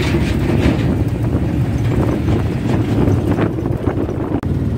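Engine and road rumble heard from inside the rear cabin of a moving passenger vehicle, steady and loud, with short rattles and knocks from the body.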